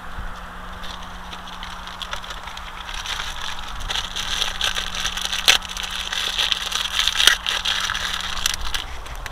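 Cheap plastic-and-fabric kite and the things around it rustling and crinkling as they are handled, louder from about three seconds in, with two sharper clicks a couple of seconds apart.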